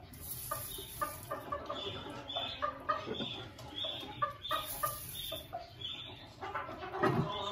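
Chickens clucking in a run of short, repeated calls, with a rustle of straw about seven seconds in as eggs are set into the nest.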